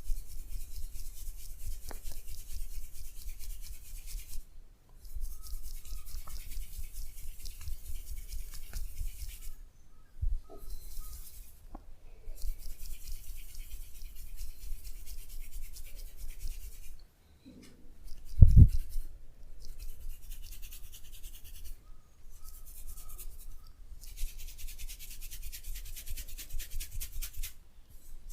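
Massage: hands rubbing briskly and rapidly over the body in spells of a few seconds, with short pauses between them. A single short, louder low thump comes about two-thirds of the way through.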